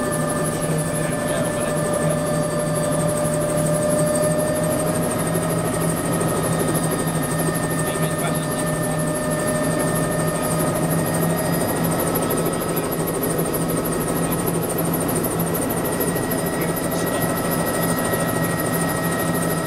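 Bell 206B-3 JetRanger's Allison 250 turbine engine and rotor running on the ground after start, heard from inside the cabin: a steady high turbine whine over a low hum, with a slight shift in the tones about halfway through.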